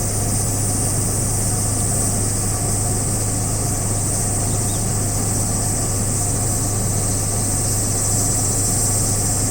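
Steady low engine-like hum, as of an idling engine, under a steady high-pitched buzzing drone. A faint short chirp is heard about halfway through.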